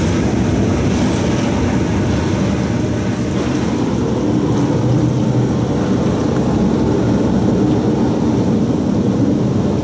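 In-bay automatic car wash spraying tri-foam and water over the car: a loud, steady rush of spray on the roof and glass, heard from inside the cabin.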